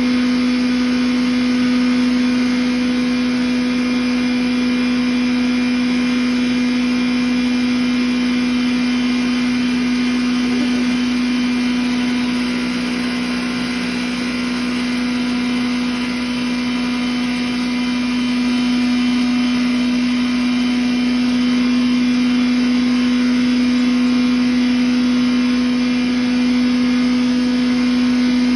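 10 HP rice-husk and cattle-feed grinder running under load as husks are poured into its hopper: a steady droning hum over a rushing noise.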